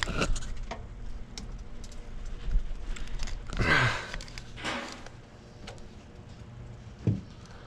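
Scattered clicks and knocks of hands and tools working at a stubborn coolant hose on a truck's water pump. About halfway through a man gives a short straining vocal sound, and near the end there is a single sharper knock.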